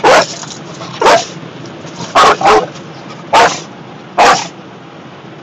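A dog barking: six short, sharp barks roughly a second apart, two of them in quick succession in the middle.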